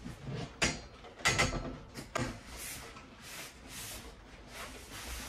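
Black metal side frame of an IKEA Vittsjo shelf unit being lifted and handled. There are a few sharp knocks and clicks in the first couple of seconds, then softer scraping and rustling.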